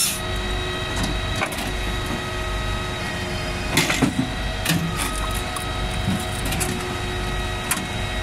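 Palax KS 35 firewood processor running between saw cuts: a steady mechanical hum with a whine from its drive, while split wood knocks and clatters on the conveyor and splitter, a few sharp knocks coming in a cluster about four seconds in.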